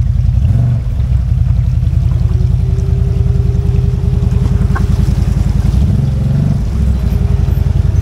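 CFMOTO ZFORCE 950 HO side-by-side's V-twin engine running at low speed on the trail, the engine note swelling briefly about half a second in and again around six seconds. A thin steady whine joins at about two and a half seconds.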